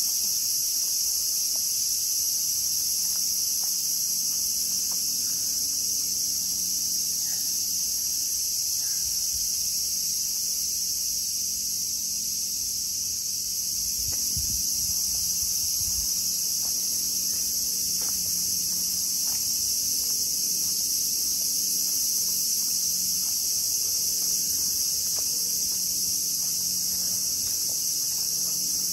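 Steady, high-pitched insect chorus that runs without a break.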